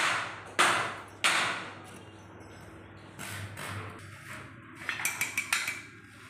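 Metal-on-metal work on a rolling-shutter spring assembly: three sharp knocks in the first second and a half, each ringing briefly, then quieter handling and a quick run of light metallic clinks about five seconds in as spanners work the nuts on the spring ends.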